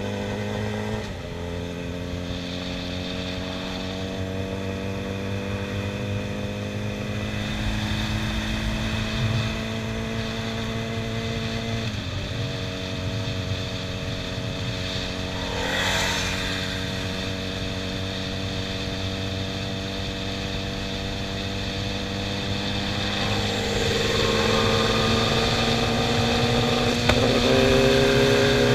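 Litre-class sport bike's inline-four engine running under light throttle, its pitch climbing slowly and dropping three times at upshifts, with wind noise underneath. Near the end a second sport bike's engine riding alongside makes the sound louder and fuller.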